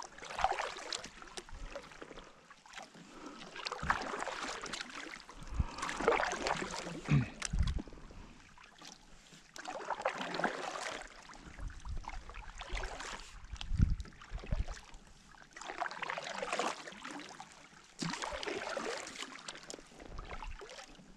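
Kayak paddle strokes through calm water: a swell of splashing and dripping every few seconds, with quieter gaps between. A couple of low knocks are heard, near a third of the way in and again around two-thirds.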